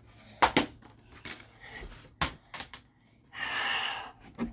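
Sharp clicks and clatter of plastic DVD cases and discs being handled, with a brief scraping rustle about three and a half seconds in.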